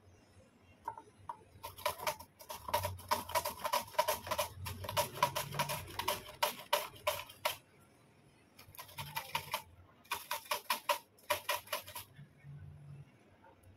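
A vegetable being sliced by hand on a pink plastic slicer: quick rasping strokes, about four a second, in two runs with a short pause between.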